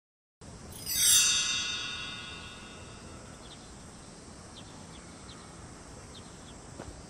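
A bright descending chime run about a second in, ringing and fading over about two seconds. It is followed by a steady faint outdoor hiss with scattered soft bird chirps.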